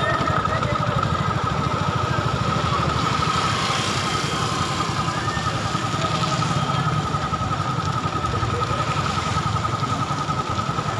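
A slow-moving motor vehicle's engine runs steadily with a low rumble, and a steady high-pitched tone sounds over it.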